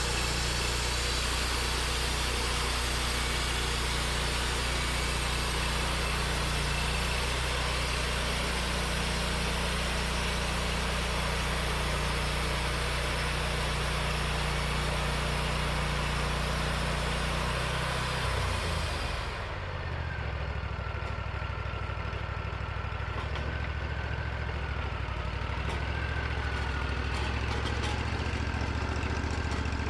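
Engine of a portable band sawmill running steadily while the band blade cuts through a white pine log with a dense hiss. About 18 seconds in the cut ends: the hiss stops, the engine's pitch drops and it runs on with a faint wavering whine.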